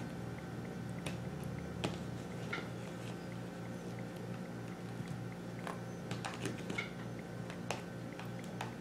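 Faint, scattered soft clicks and taps of tofu cubes being picked out of a plastic food container by hand, over a low steady hum.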